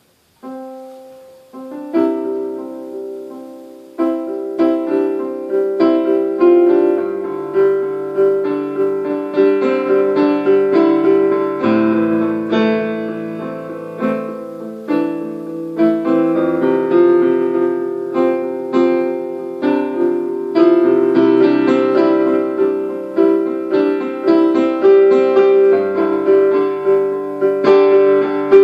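Solo piano improvisation. A few sparse notes open it, then from about four seconds in a steady flow of repeated notes and chords runs in the middle register.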